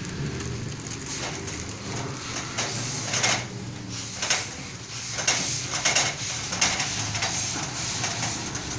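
Gravity-feed steam iron giving short hisses of steam in quick, irregular succession while ironing.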